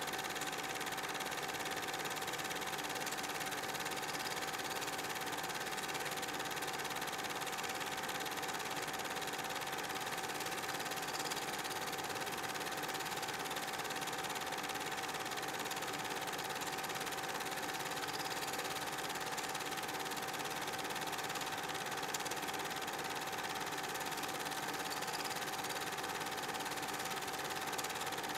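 Super 8 film projector running: a steady mechanical whir and hum with a constant whine, unchanged from start to finish.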